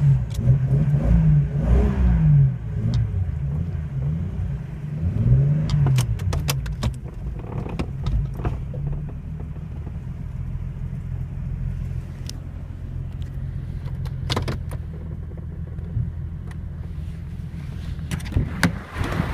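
1997 Jeep Cherokee XJ's 4.0-litre inline-six engine running. The revs rise and fall a few times in the first six seconds or so, then settle to a steady idle, with a few sharp clicks along the way.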